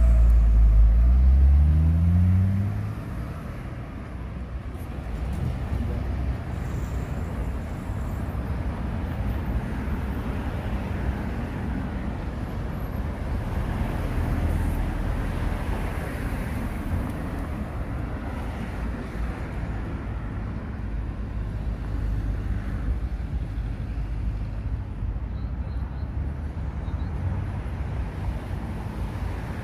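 Street traffic: a nearby vehicle's engine revs up with rising pitch and pulls away in the first couple of seconds, then steady road noise from passing cars.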